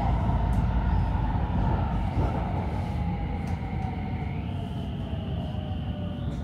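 Stockholm metro train running, heard from inside the carriage: a steady low rumble with a motor whine that slowly falls in pitch. A higher tone steps up about four seconds in.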